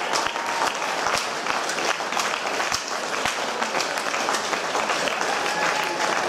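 A group of rugby players applauding each other: many hands clapping at once, with some voices mixed in.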